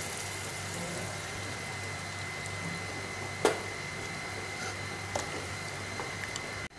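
Steady hiss of a gas stove burner under an aluminium pan of simmering brinjal kulambu gravy. A metal ladle gives one sharp clink against the pan about three and a half seconds in, with a few fainter taps later.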